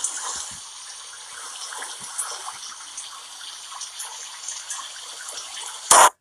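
Movie-soundtrack rain and rainwater rushing along a street gutter into a storm drain: a steady hiss of running water. A short, loud hit comes just before the end.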